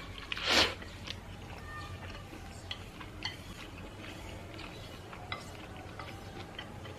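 Close-up eating sounds: one short, loud mouth noise about half a second in, then soft chewing with scattered light clicks of utensils against the dishes.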